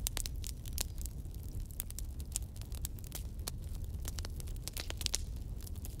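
Wood fire burning: a steady low rush of flames under frequent, irregular sharp crackles and pops from the burning wood.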